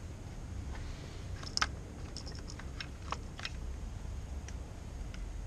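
Small, sharp plastic clicks and taps, about a dozen scattered through, the loudest about one and a half seconds in, as an electrical connector on a Mercedes-Benz C180 W202's fuel-injection wiring harness is squeezed at its two side tabs and worked loose. A faint low hum runs underneath.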